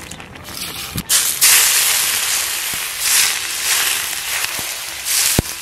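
Hot oil poured over garlic, green Sichuan peppercorns and dried chilies, sizzling loudly and swelling again twice as more oil goes on, after a single knock about a second in.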